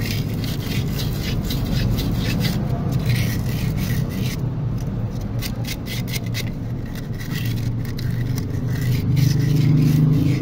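Sandpaper rubbed by hand around the coolant core-plug (freeze-plug) bore of a Chevrolet Aveo's cast-iron engine block, in quick repeated scraping strokes that clean rust and pitting from the seat before a new plug goes in. A steady low hum runs underneath.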